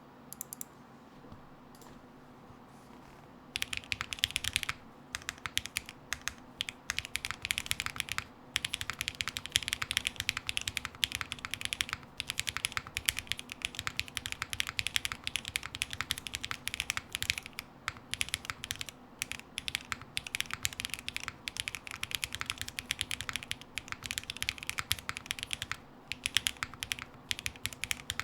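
Typing on a GHS.JEM custom mechanical keyboard with lubed Zaku switches, a carbon fiber plate, no plate dampener and GMK keycaps. After a few quiet seconds, a steady run of quick keystrokes begins, broken by short pauses.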